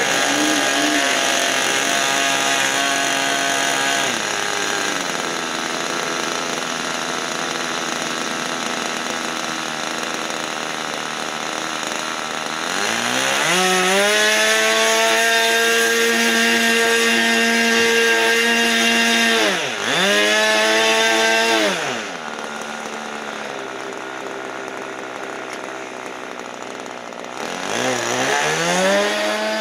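Electric RC airplane motor and propeller whining, the pitch following the throttle. It holds steady, drops at about 4 seconds in, then rises to a high steady whine near the middle, dips sharply and comes back, eases off, and rises again near the end.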